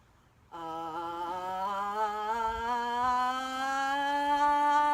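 A woman's voice sustaining one long sung 'ah' vowel as a toning exercise, starting about half a second in and gliding slowly upward in pitch, wavering slightly at first.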